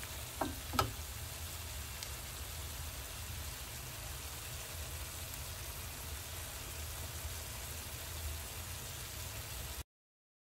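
Pork and cherry tomatoes frying in a nonstick pan, sizzling steadily with a low rumble underneath, after two quick clicks of the spatula against the pan near the start. The sound cuts off suddenly near the end.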